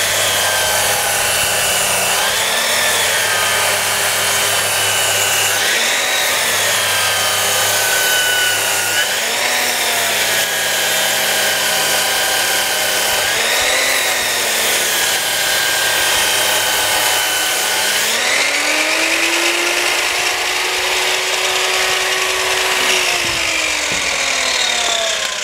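DeWalt circular saw fitted with a 2.2 kW Bosch angle-grinder motor, running under a varying load. Its motor whine lifts briefly and settles back every few seconds. About three quarters of the way through it speeds up to a higher steady pitch, then slows near the end.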